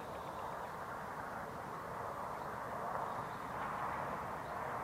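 Steady outdoor background noise: a continuous even hiss, like distant road traffic or wind, slowly getting a little louder.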